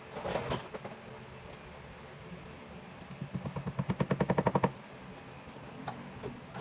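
A brief clatter, then a rapid run of mechanical clicks, about ten a second, growing louder for a second and a half before stopping.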